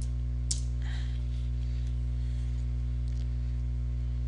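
Steady low electrical mains hum picked up by the recording, with one faint click about half a second in.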